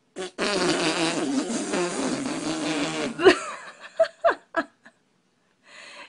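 A long fart lasting about three seconds, wavering in pitch, followed by a few short vocal sounds.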